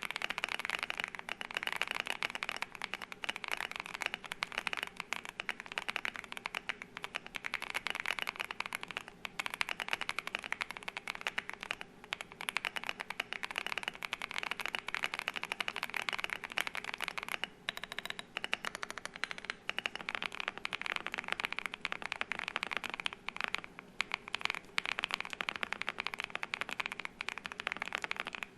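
Rapid, continuous typing on a Monsgeek M1 V3 keyboard with Akko Creamy Purple Pro tactile switches under SA-profile keycaps: a dense stream of keystroke clacks. The switches are stock at first, then, after a short pause about two-thirds of the way in, lubed.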